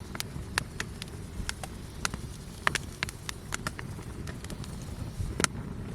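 Wood campfire crackling, with irregular sharp pops over a steady low rumble; the loudest pop comes about five and a half seconds in.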